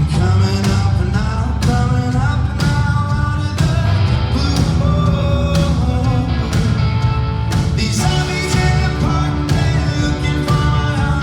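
Live rock band playing through a concert sound system, with drums, bass and guitars.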